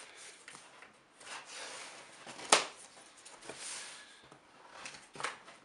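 Hands sliding and rubbing over a large cardboard shipping box as it is handled, with a sharp knock on the box about two and a half seconds in and a lighter one near the end.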